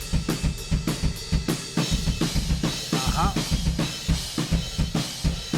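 Recorded drum kit playing a fast, steady beat with prominent kick and snare, run through the Lindell 254e plugin, an emulation of the Neve 2254 compressor, set to a fast release for a punchy sound.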